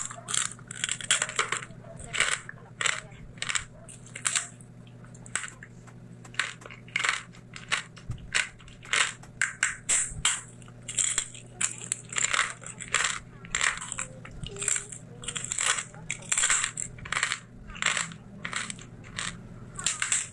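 Close-miked chewing of crisp, crunchy food: a steady run of sharp crunches, about two or three a second, over a faint low hum.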